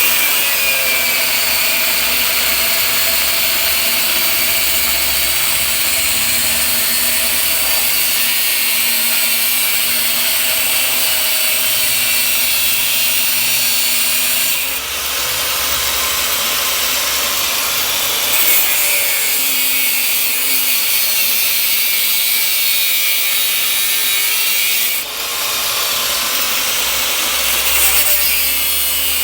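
Power cutting tool, an angle grinder by its steady running, cutting under load without a break, easing off briefly about halfway through and again near the end.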